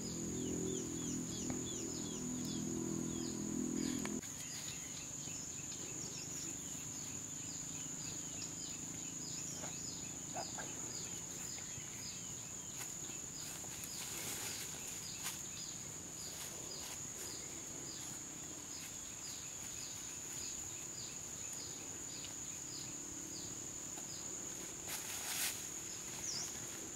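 Outdoor insect ambience: a steady high-pitched insect drone with short falling chirps repeating about twice a second. A low hum stops about four seconds in, and two brief rustling noises come midway and near the end.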